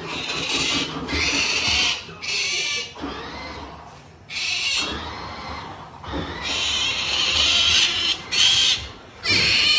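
Pet otter making its attention-seeking 'pampering' calls: a string of about seven high-pitched squeals, each half a second to a second long, with short pauses between them.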